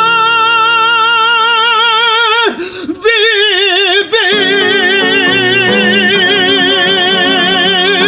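Male classical singer holding long, loud notes with wide vibrato over piano accompaniment: one sustained note breaks off about two and a half seconds in, and a second long note begins about half a second later and is held on.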